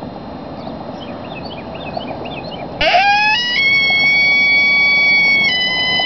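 Barnett Tribute coyote howler call blown in one long, high howl. About three seconds in it climbs in quick steps to a steady pitch, then drops to a slightly lower pitch near the end: a pitch break in the wrong place.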